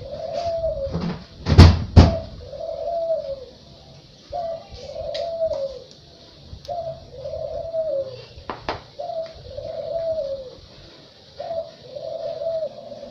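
A dove cooing, the same short phrase of low, rising-then-falling notes repeated about every two to three seconds. Two sharp knocks about two seconds in are the loudest sounds, with another near the middle.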